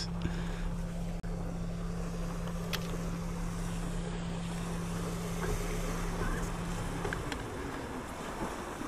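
A steady low motor hum over wind and lapping water. The hum cuts off about seven seconds in.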